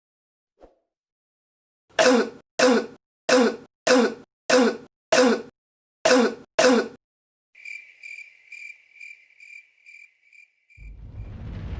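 A person coughing about eight times in quick succession, then a cricket chirping in a steady pulse for about three seconds. Near the end a swell of noise rises.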